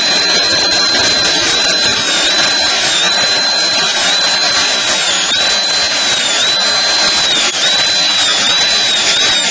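High-speed dental handpiece running with a steady high whine as its bur cuts a model central incisor for a crown preparation. The pitch dips briefly over and over, roughly once a second, each time the bur bites into the tooth and the handpiece slows under load.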